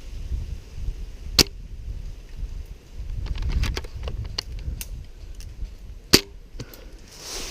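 Scattered airsoft gunfire: sharp pops and clicks, with two louder cracks about a second and a half in and about six seconds in, over a low rumble.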